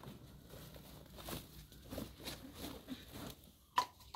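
Faint rustling and soft knocks of things being handled on the ground, with one sharp click near the end.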